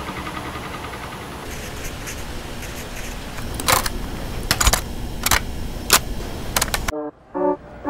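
Plastic clicks and clacks of a portable cassette player being handled and loaded with a tape, about six sharp clicks in the second half, over a steady hum. Near the end the hum cuts off abruptly and music starts.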